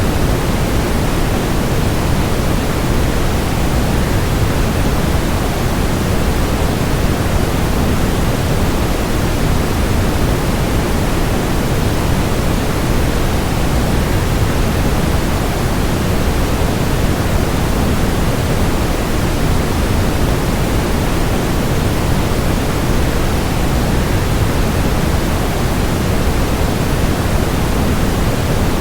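Waterfall white noise: a steady, even rush of falling water, heavier in the low end and thinning toward the top.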